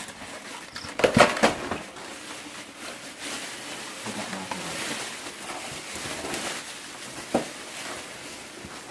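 Knocking and clattering as the parts and packaging of a new mini bandsaw are handled: a cluster of loud knocks about a second in and one sharp knock near the end, with rustling and light rattling between.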